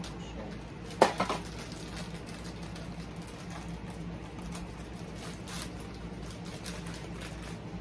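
Packaging rustling and crinkling as a mystery-mini figure box is opened by hand, with one sharp knock about a second in, over a low steady hum.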